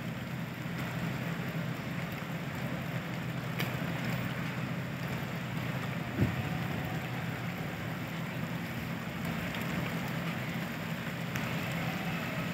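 Heavy rain falling steadily, over a low steady hum, with a single brief thump about six seconds in.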